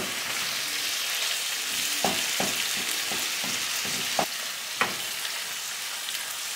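Sliced peppers, onion and tomato sizzling steadily in oil in a frying pan, stirred with a wooden spatula that knocks against the pan several times between about two and five seconds in.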